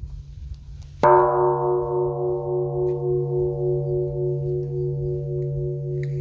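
Large Korean Buddhist temple bronze bell struck once about a second in, then ringing on with a deep steady hum under several higher tones that slowly fade, one of them pulsing in a regular wavering beat.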